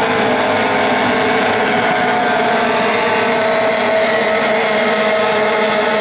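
Several AX-class stock outboard racing hydroplanes running at full throttle together, a loud, steady, many-pitched engine whine, one pitch rising a little midway as the boats pass.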